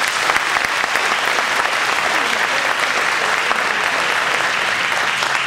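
Audience applauding: many hands clapping in a steady, dense patter that dies away near the end.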